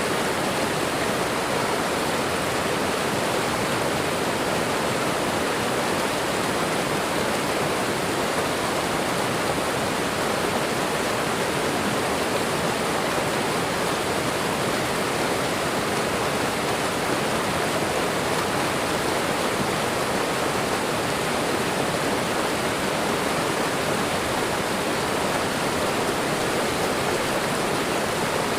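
Waterfall: a steady, unbroken rush of falling and running water.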